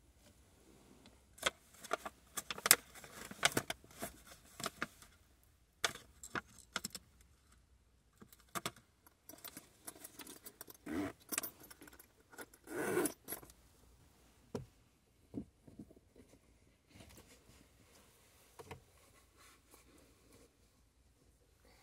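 Handling noises in a car's front seat as a person changes her shoes: clothing rustling, scattered sharp clicks and small metallic jingling, coming in clusters with short pauses. The loudest rustling comes a little past the middle.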